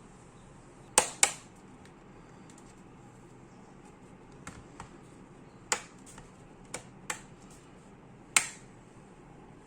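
About nine sharp clicks and taps of small hard parts being handled while a laptop is reassembled. The loudest are a close pair about a second in and a single click near the end.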